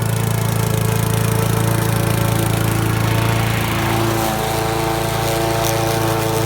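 Old lawn mower's small petrol engine running steadily, with a brief rise in hiss about three seconds in and a slight change in its note about a second later.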